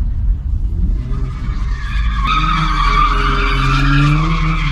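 Car driving, heard from inside the cabin: a steady low road rumble, joined about two seconds in by a high squeal and a rising engine note, as the car comes up to a stop line.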